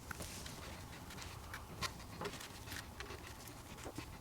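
Faint scattered plastic clicks and scrapes as the end cap of a JBL Flip 4 Bluetooth speaker is fitted back onto its housing, over a low steady hum.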